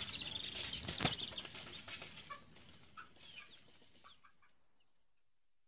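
Young broiler chicks peeping, many short high cheeps over a steady high hiss, with a single knock about a second in. The sound fades out to near silence over the last couple of seconds.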